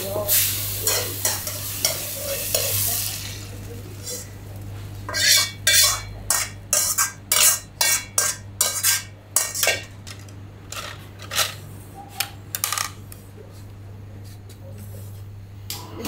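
Ramen kitchen work: metal utensils and pots clattering. A hissing wash comes first, then from about five seconds in a quick run of sharp knocks and clacks that dies away near thirteen seconds. A steady low hum runs underneath throughout.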